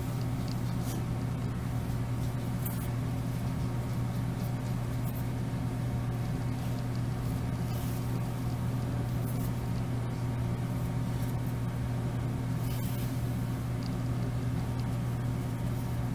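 A steady low hum that holds level throughout, with a few faint scattered clicks.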